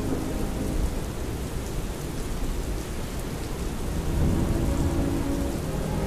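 Thunderstorm ambience: steady rain with a low rumble of thunder, the rumble swelling about four seconds in.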